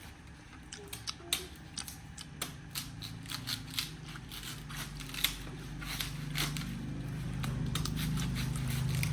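A series of sharp, irregular clicks and snips, with a low hum building and growing louder in the second half.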